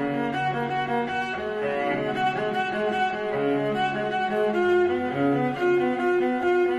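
Slow music played on bowed string instruments, cello to the fore, in sustained notes that change every second or so.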